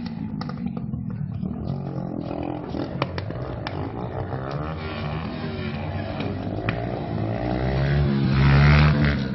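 Motorcycle engine running and revving as the bike is ridden, building to a louder burst near the end.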